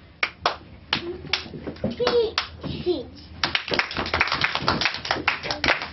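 Children's hands clapping: a few scattered claps, then about halfway through a quick, dense run of claps.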